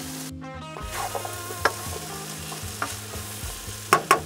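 Chopped vegetables (potatoes, bell peppers, carrots) sizzling in a frying pan on a gas burner as they are stirred with a wooden spoon. There are light clicks of the spoon against the pan, then several sharper knocks near the end.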